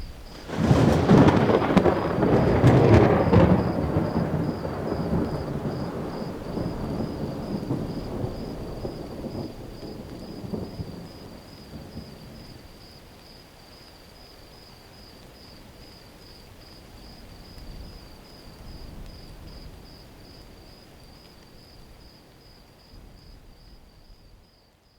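Thunder from a nearby lightning strike: a sudden sharp crackling clap about half a second in, then a long rolling rumble that fades away over about ten seconds.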